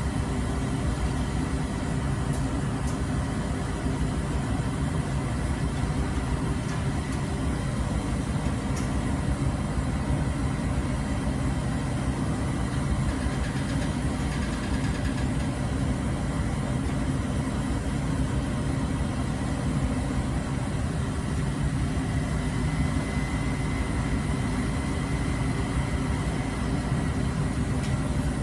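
Crane truck's engine running steadily at idle, an even low rumble, while the boom holds a drywall load aloft.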